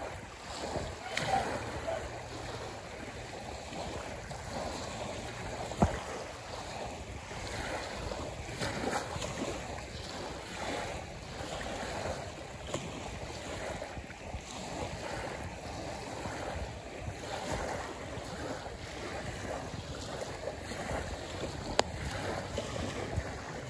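Small waves lapping at a sandy, pebbly lakeshore, with wind buffeting the microphone. Two sharp clicks stand out, one about six seconds in and one near the end.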